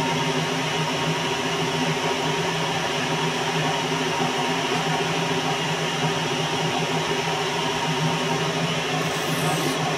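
Metal lathe running with its spindle turning a round bar in the chuck, a steady hum and whine from motor and gearing, with no cut being taken.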